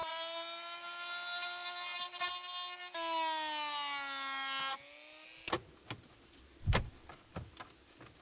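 Rotary tool with a grinding stone whining steadily as it grinds away the plastic of a car's HVAC bezel, its pitch sinking over its last couple of seconds before it cuts off suddenly. After that come a few clicks and knocks, one heavier thump among them, as plastic dash trim is handled and pressed into place.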